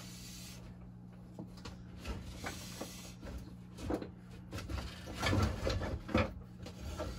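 Steel wood-turning knife blade being rubbed flat on wet 600-grit sandpaper laid on a glass plate: scraping strokes of metal on abrasive with light knocks of the tool being handled, loudest in a run of strokes about five to six seconds in.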